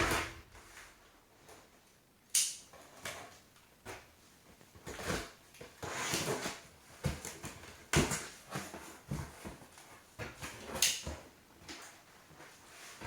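Cardboard LEGO set boxes being handled: irregular knocks, scrapes and rustles as the boxes are moved and set down, with a sharper knock about eight seconds in and another near eleven seconds.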